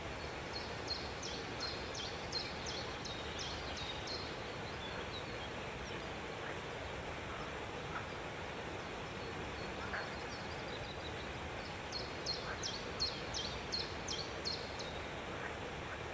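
A small caged bird singing two runs of quick, high chirps, one about a second in and another near the end, over a steady background hiss.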